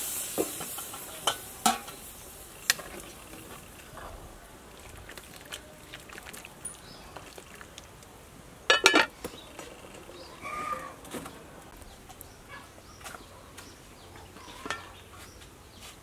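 A metal ladle clinking and knocking against a large metal soup pot now and then, loudest in a short cluster of knocks about nine seconds in.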